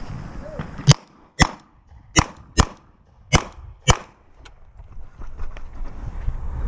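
Semi-automatic pistol firing six shots in three quick pairs, each pair about half a second apart.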